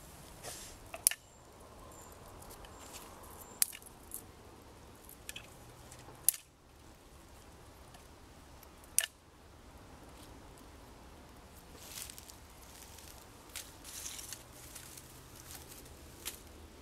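Hands working in dry leaf litter and twigs on the ground: soft rustling, with four sharp snaps spaced two to three seconds apart.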